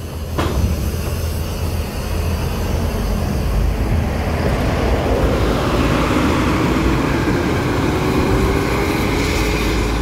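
Heavy bus diesel engine running as a bus drives slowly onto a ferry, a steady low rumble with one short knock just after the start. From about halfway through, a faint tone slowly rises and falls over the rumble.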